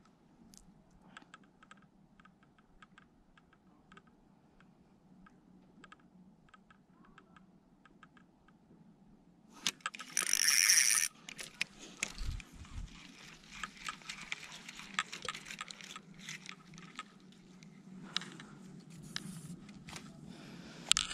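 Faint scattered clicks from handling the fishing rod and reel, then a loud brushing rustle about ten seconds in as a sleeve rubs past the microphone. After that come footsteps crunching and rustling through dry grass and pine needles along the bank.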